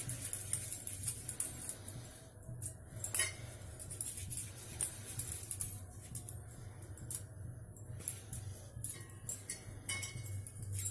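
Bangles on the wrists clinking lightly and irregularly as hands roll small balls of dough, over a steady low hum.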